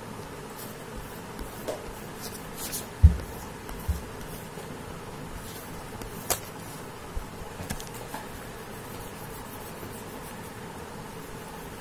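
A sheet of drawing paper being handled and shifted on a table: a dull thump about three seconds in, a softer one a second later, then a sharp click and a few light taps, over a steady low hiss.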